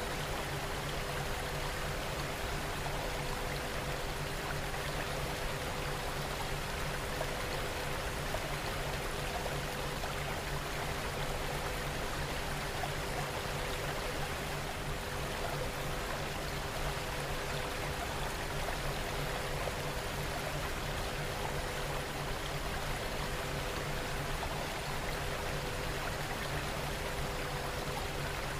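Steady rain ambience: an even hiss of falling water that does not change in level. A faint steady hum lies beneath it, with one higher tone pulsing gently.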